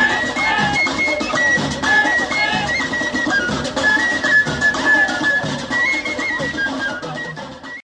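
Background music in a traditional folk style: a flute melody stepping between notes over a lower accompaniment. It softens slightly near the end, then cuts off suddenly.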